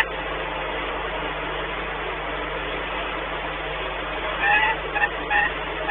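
Peregrine falcons calling in the nest box: three short, high calls about half a second apart near the end, over a steady background hiss and hum.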